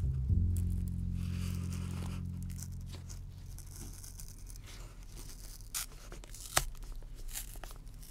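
Old glued leather being pried and peeled off a wooden razor-strop case with a small knife: dry tearing and crackling as the old glue lets go, with a few sharp snaps in the second half.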